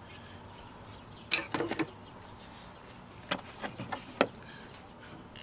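Short clicks and light scrapes of small metal parts and tools being handled under the hood: greased alternator mounting bolts being picked up and set in place. A few separate clicks a bit over a second in, a small cluster around three to four seconds in, and a sharper click at the end.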